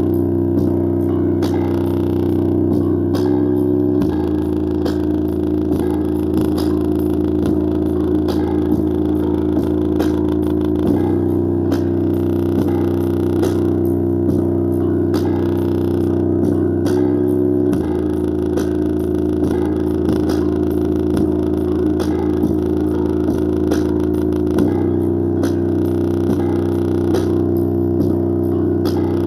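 Bass-heavy music played through a JBL Flip 4 portable Bluetooth speaker with its casing removed, as a bass test. Long, deep bass notes are held several seconds each, shifting to a new pitch about every seven seconds, under a busier upper part.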